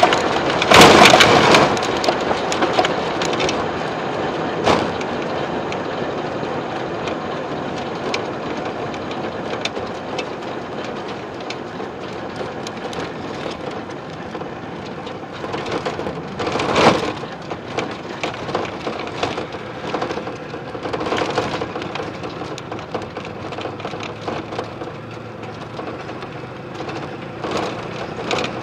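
Rushing wind and rolling noise in the open cockpit of an A/Fuel dragster, with no engine running, broken by scattered knocks and rattles and a few louder surges. The noise slowly fades.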